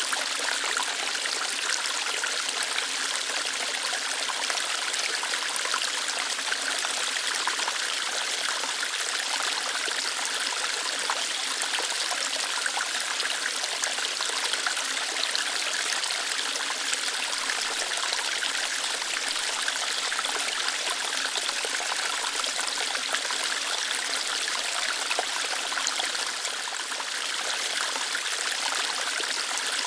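Small waterfall splashing lightly over rocks: a steady, even rush of water with no deep rumble.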